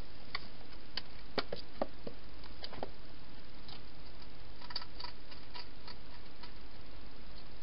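A wild hedgehog entering a plastic feeding box and going to the food bowls: scattered small clicks and taps from its claws, body and feeding, in two loose clusters, over a steady hiss.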